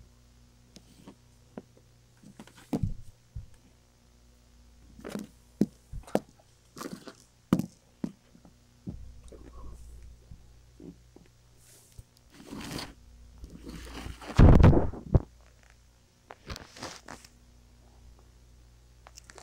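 Scattered knocks, thumps and scrapes, with one longer, loud rumbling thump about fourteen seconds in.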